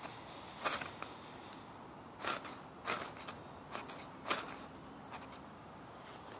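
A ferro rod being scraped to throw sparks into tinder: about five quick, sharp rasping strikes at irregular intervals.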